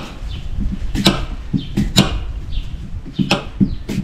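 Irregular sharp knocks and clatters of kitchen utensils and chopped fruit, about five in four seconds, as red apple pieces are added to the fruit drink.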